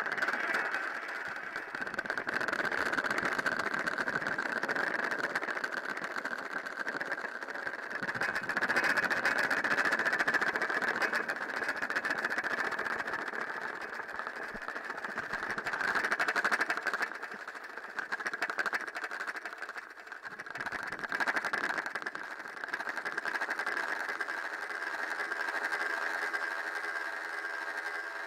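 Electroacoustic sound-art mix of manipulated field recordings: a dense crackling drone with a steady high-pitched band, swelling and easing several times. Near the end a hum of several steady tones comes in beneath it.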